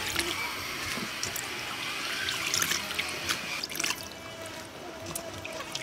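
Water splashing and trickling, with scattered small drips and clicks.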